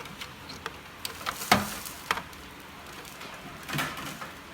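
Scattered clicks and knocks from plastic trim being handled as the grille is worked free of its clips, with one sharper knock about a second and a half in.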